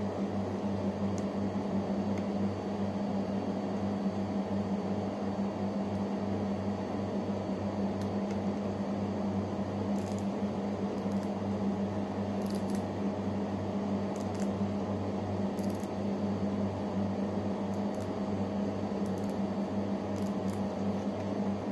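Steady mechanical hum of a room appliance, with faint crisp rustles and snaps from malunggay (moringa) leaves being picked off their stems by hand, more of them in the second half.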